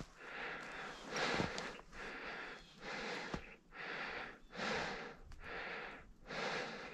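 A person breathing in and out close to the microphone, each breath a short soft hiss, roughly one a second.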